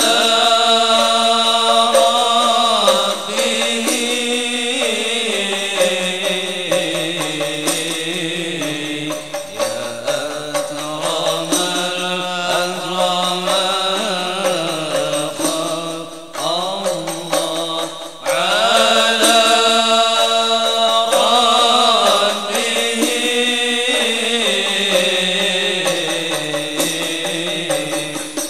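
Men's voices chanting an Islamic devotional syair in long, melodic, wavering phrases, with a short pause between phrases about eighteen seconds in.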